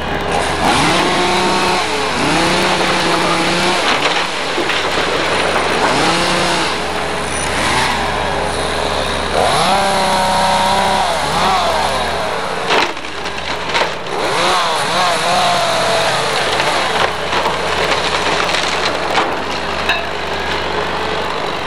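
Hydraulic excavator demolishing a wood-frame house: its diesel engine runs under load, with a whine that holds, then rises and falls as the arm works. Timber cracks sharply a couple of times as the wall is pulled apart.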